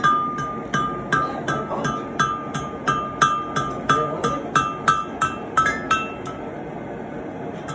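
Hand hammer striking steel on an anvil in an even rhythm of about three blows a second, each blow ringing the anvil with a clear metallic ring; the hammering stops about six seconds in.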